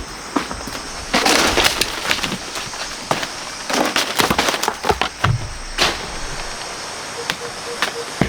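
Irregular sharp cracks and snaps with bursts of rustling, over a steady high chirring of insects.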